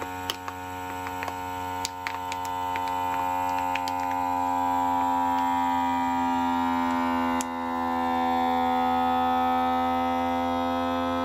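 GFGRIL vacuum sealer's pump running steadily on its auto cycle, drawing the air out of a plastic vacuum bag. The bag crackles and crinkles during the first few seconds as it collapses around the meat, and there is a brief break in the hum about seven and a half seconds in.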